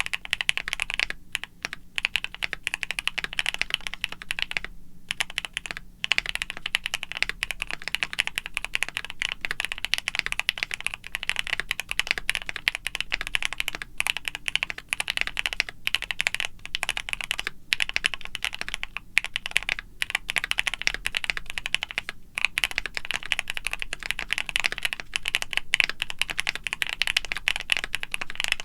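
Rapid, continuous clicking like fast typing on a keyboard, with a few brief pauses.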